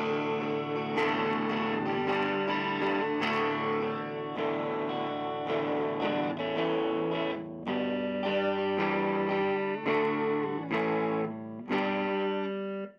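Electric guitar on its neck pickup played through a StewMac 5F1 (Fender Champ circuit) tweed tube amp turned all the way up, a little loud, with nice tube breakup and distortion. Chords change about once a second, and the sound cuts off abruptly at the end.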